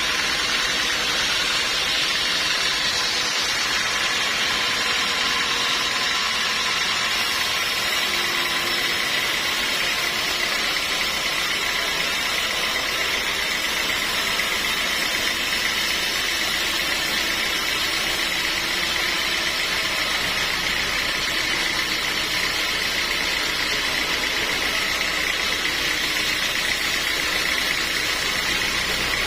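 Sawmill machinery running steadily: a constant whine over an even mechanical hiss, with no breaks.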